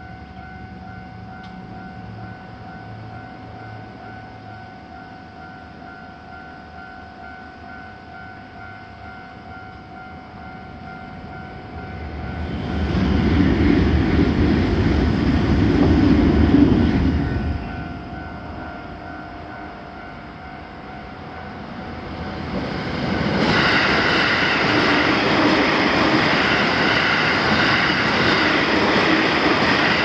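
Japanese level-crossing warning bell ringing steadily with its rapid electronic clang. About twelve seconds in, a loud rush of a passing train swells and fades over some five seconds. From about 23 seconds, an electric commuter train runs loudly through the crossing.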